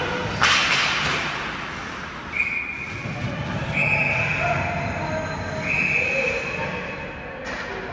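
Ice hockey play: a sharp crack of stick on puck or puck on boards about half a second in, then skate blades scraping the ice in three short strokes over steady arena noise.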